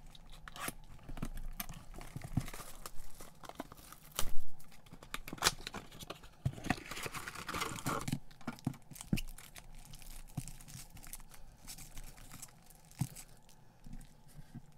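A trading card box being torn open, then the foil card packs inside crinkling and rustling as they are pulled out and handled: irregular crackles and rustles, the sharpest about four seconds in.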